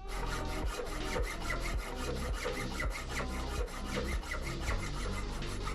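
Hacksaw sawing through a 12-gauge shotgun in quick, even back-and-forth strokes, cutting the gun down to a sawed-off.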